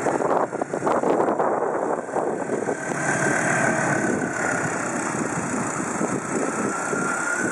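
Small electric robot rover driving on asphalt: a faint steady motor whine comes in about three seconds in, over rough rustling and handling noise with scattered knocks in the first two seconds.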